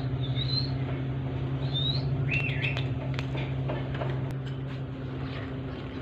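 Alexandrine parakeets giving a few short, high chirps, with scattered light clicks in the middle, over a steady low hum.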